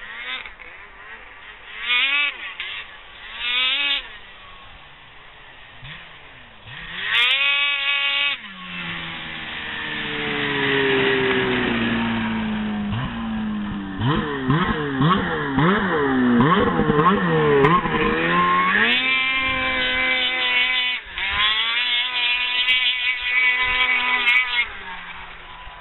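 Ski-doo snowmobile's two-stroke engine revving hard. Two short blips come first, then a sharp climb and a long run with the pitch sliding down. Rapid up-and-down revving follows, and near the end the engine is held high with a brief cut about 21 seconds in.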